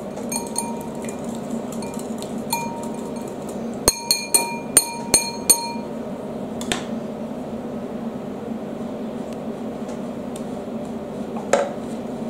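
Wire whisk clinking against a ceramic bowl while egg yolks are whisked: light ringing clicks, then a quick run of about five sharper, louder clinks about four seconds in. A knock near the end, with a steady low hum underneath.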